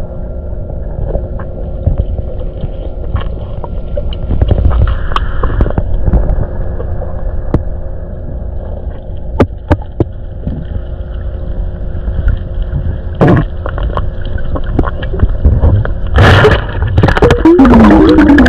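Sound heard through an underwater microphone: a steady low rumble with scattered muffled clicks as a man drinks from a bottle of cola underwater. About sixteen seconds in, loud bubbling bursts begin as he lets out the submerged burp.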